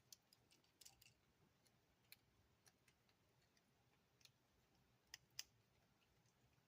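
Near silence broken by faint, scattered small clicks of plastic action-figure parts and screws being handled, two slightly louder clicks about five seconds in.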